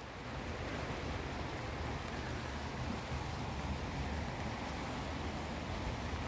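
Steady outdoor background noise: an even hiss over a low rumble, with no distinct events.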